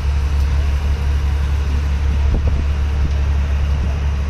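Steady low engine drone from heavy machinery running without change, with faint voices in the background.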